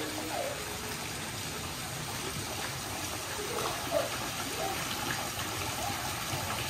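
Steady rush of water from a pool's fountain spouts spraying and splashing into shallow water.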